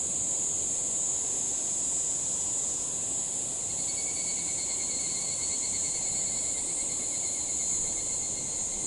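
Higurashi (evening cicadas) calling: a steady high-pitched insect chorus, joined about four seconds in by a closer pulsing trill.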